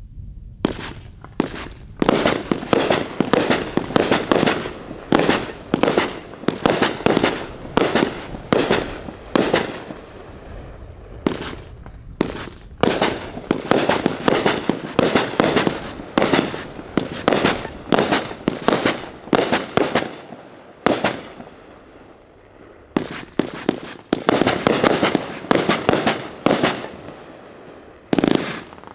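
A 36-shot, 500-gram fireworks cake firing shot after shot: sharp bangs about one or two a second, with a short lull about three-quarters of the way through before the shots pick up again.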